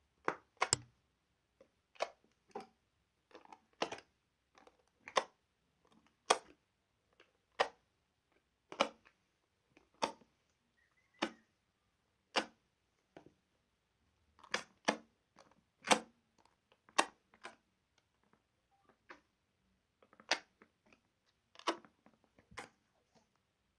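Slime being played with by hand, giving sharp pops and clicks at irregular intervals, roughly one or two a second.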